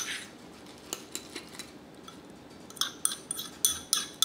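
Metal utensil clinking against a ceramic bowl while mixing pancake batter: a sharp knock at the start and a few scattered taps, then, from about three seconds in, quick even beating at about four strikes a second.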